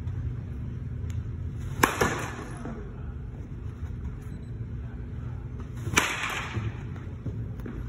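Baseball bat hitting soft-tossed balls: a sharp crack about two seconds in, followed at once by a second knock, and another crack about six seconds in, over a steady low hum.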